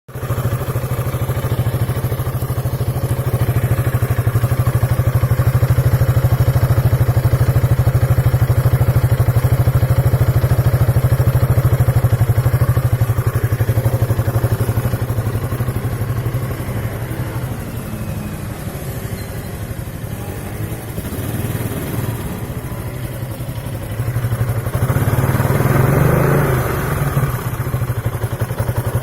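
2003 Piaggio Beverly 500ie scooter engine running, steady at first. About two-thirds of the way through it turns rough and uneven with a 'popcorn' misfire at idle, then picks up again near the end. The misfire and stalling come from a fault that the owner traced to a failing ECU.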